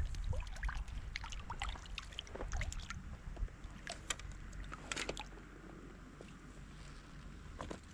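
River water sloshing and trickling, with scattered small clicks and knocks. A low rumble at the start dies away within the first couple of seconds.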